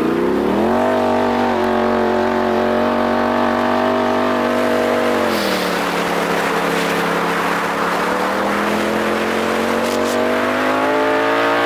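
Straight-piped 2018 Polaris RZR Turbo S's turbocharged twin-cylinder engine under hard acceleration, heard from the cab. Its pitch climbs in the first second and holds steady, dips about five seconds in, then rises slowly again toward the end.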